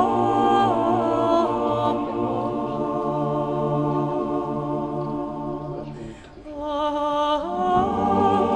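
Background music of slow, long-held choir-like vocal notes that glide from pitch to pitch, dipping briefly about six seconds in before the notes resume.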